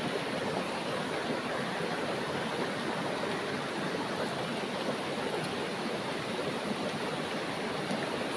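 Shallow river rushing steadily over rocks, a constant even roar of flowing water.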